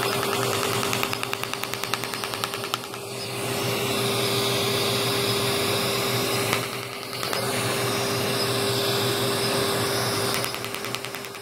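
Er:YAG resurfacing laser firing a rapid train of pulses, heard as a fast run of clicks, over a steady suction hiss and a machine hum with one constant tone. The clicking stops about three seconds in and comes back near the end.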